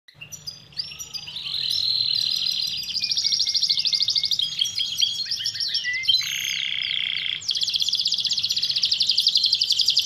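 A canary singing: fast, high trills that change to a new phrase every second or so, fading in over the first couple of seconds. A lower, rasping phrase comes a little after six seconds.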